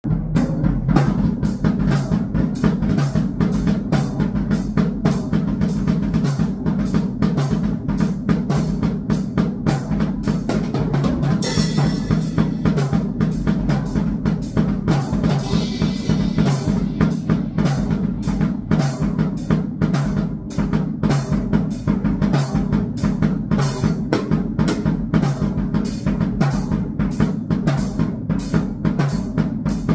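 Drum kit played in a fast, steady hardcore beat, bass drum and snare hits evenly spaced, over a continuous low drone.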